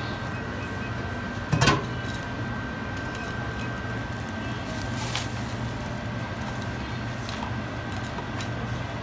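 Metal serving tongs clacking against abalone shells and crushed ice, a few sharp clicks with the loudest about one and a half seconds in, over a steady hum with a thin high tone from the shop's chilled display.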